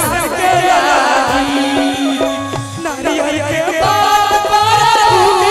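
Two women singing a traditional Maithili Chhath devotional folk song into microphones, over a steady, even drum beat.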